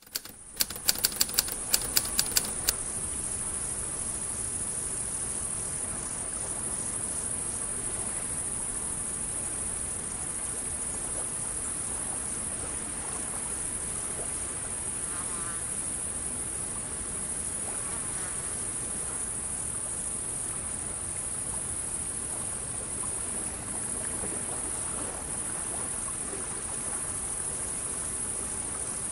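Steady high-pitched chorus of crickets and other insects over a low, even hiss. In the first couple of seconds a quick run of about ten sharp clicks sounds over it.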